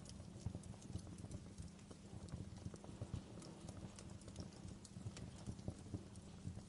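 Wood fire crackling in a fireplace: irregular sharp pops and snaps of burning logs over a steady low rumble.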